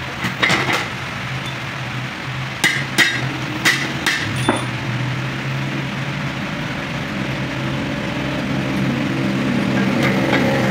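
About seven sharp metallic taps in the first four and a half seconds, each with a brief ring, like light hammer blows on steel during truck clutch work. A steady low machine hum runs underneath.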